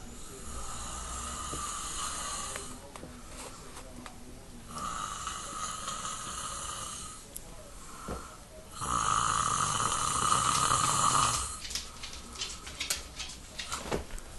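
A sleeping person snoring: three long snores of about two and a half seconds each, spaced about two seconds apart, the third the loudest. A few light clicks follow near the end.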